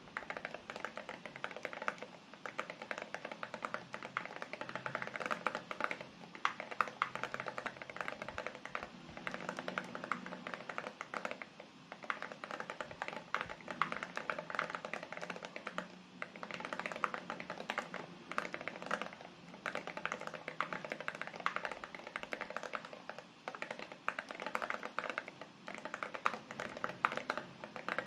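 Fast typing on a mechanical keyboard with lubed TTC Ace linear switches and ceramic keycaps: a dense run of sharp clacks, with a few short pauses between bursts.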